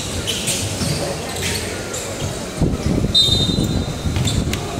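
Basketball game on a hardwood court: a ball bouncing in repeated thumps, with sneakers squeaking and players' and spectators' voices. One short, high squeak about three seconds in.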